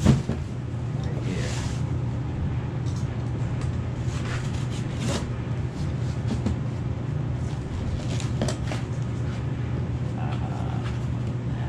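Cardboard boxes being handled: a thump as a box is set down at the start, then scattered scrapes, rustles and light knocks of cardboard, over a steady low hum.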